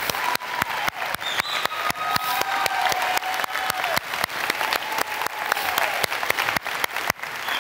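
Congregation applauding: dense, continuous clapping from a large audience.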